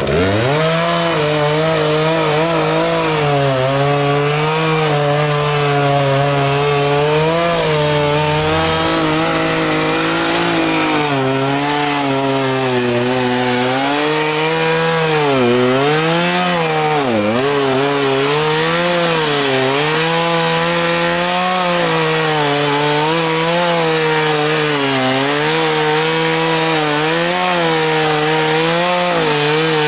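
Two-stroke chainsaw running at full throttle while cutting into a tree trunk. Its pitch wavers up and down as the chain bites into the wood, and drops sharply about halfway through as the engine bogs under load before recovering.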